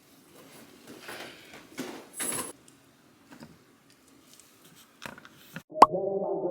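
Small items clicking, rattling and clinking as jewellery and accessories are handled and put on, one brief metallic ring about two seconds in. A sharp click near the end, then music starts.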